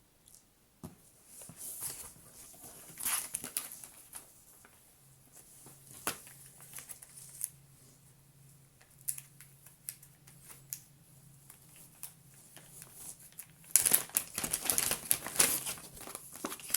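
Packaging from a 3D printer box being handled: rustling and crinkling with scattered clicks and knocks, building to a louder stretch of crinkling near the end. A faint low hum sits underneath in the middle.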